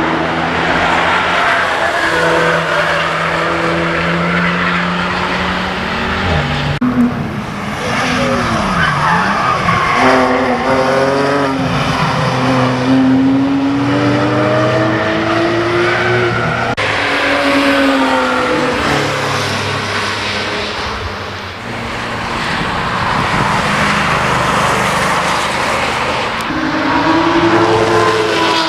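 Several sports cars passing one after another at speed, their engine notes rising and falling as they rev and change gear, with tyre squeal as they slide through the corner.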